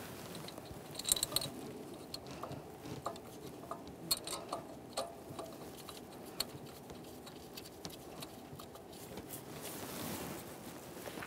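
Scattered light clicks and metallic taps as gloved hands handle and seat a new metal thermostat housing and its mounting bolts on the engine, with a cluster of clicks about a second in and another around four to five seconds in.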